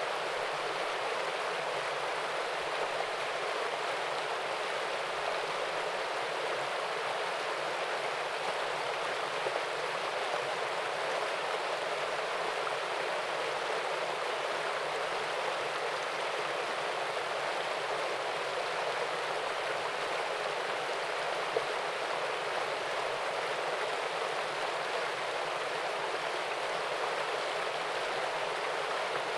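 Small waterfall and stream: water splashing and rushing steadily.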